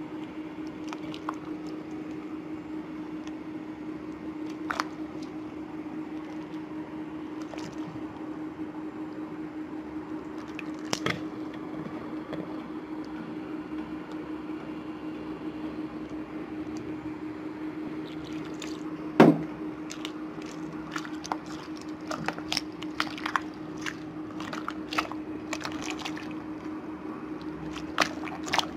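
Hand-kneaded glue slime, activated with powdered detergent, giving scattered small wet clicks and pops as it is squeezed and pulled. The pops come more often toward the end, with one sharp pop about two-thirds of the way in, all over a steady low hum.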